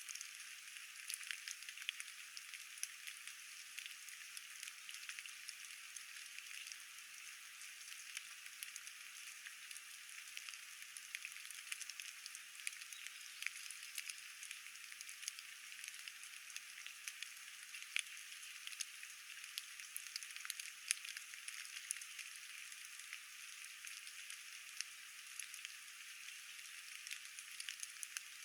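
Steady rain falling, a faint, thin hiss dotted with many small drop ticks.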